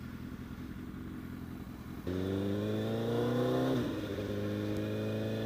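Honda CBR1000RR sport bike's inline-four engine running low and steady, then about two seconds in pulling away hard with its pitch climbing, shifting up partway through and climbing again.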